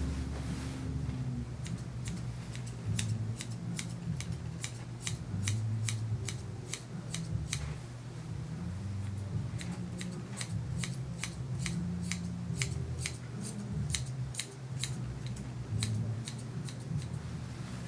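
Grooming shears snipping through a puppy's coat: quick, crisp cuts repeated about two to three times a second, starting a couple of seconds in and running nearly to the end, over a low hum.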